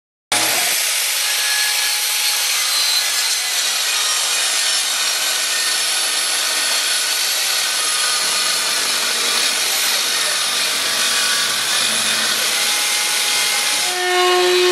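Track saw on a guide rail cutting along the side of a wooden window sash, trimming it for weatherstripping: a steady motor whine over the cutting noise, starting suddenly. About fourteen seconds in it gives way to a router running with a steady, higher-pitched hum.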